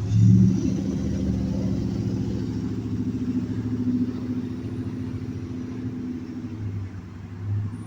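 A motor vehicle's engine running steadily with a low rumble, loudest just after the start and slowly easing off.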